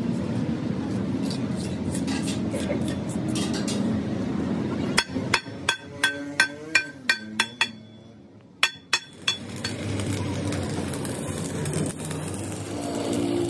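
A hammer striking the welded steel beam of a Bedford truck's front axle: about nine quick ringing blows in under three seconds, a short pause, then two more. A steady noise runs before and after the blows, and near the end an electric arc welder sizzles on the beam.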